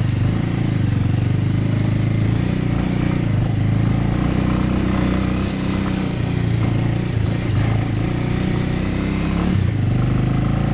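Bajaj Avenger motorcycle's single-cylinder four-stroke engine running steadily at low speed as the bike rides along a rough off-road track, with a brief dip in the engine note near the end.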